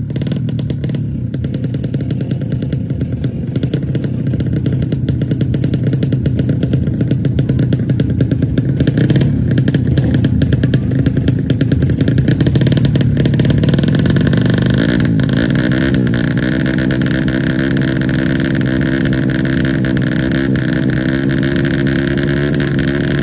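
Tuned 130cc four-stroke underbone drag motorcycle engine running loudly with a rapid firing beat, its revs wavering a little around the middle.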